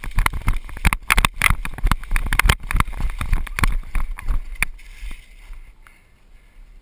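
Running footsteps over dry leaf litter and twigs, with carried gear rattling: a fast, irregular run of knocks and rustles that eases off about five seconds in.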